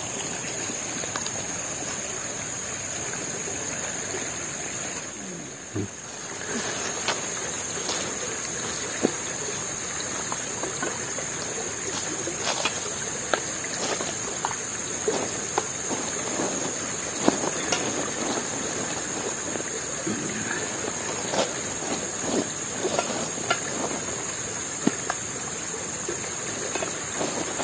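Steady rush of flowing river water under a steady high hum, with scattered sharp clicks and clinks of plates, a spoon and a plastic food container being handled from about six seconds in.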